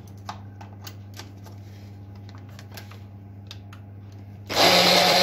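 A few light clicks and taps as the Braun hand blender's motor unit is set on its chopper bowl, then about four and a half seconds in the motor starts and runs loudly, chopping spinach with milk.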